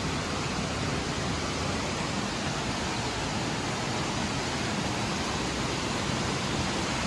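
Small waterfall on a mountain stream, water rushing steadily.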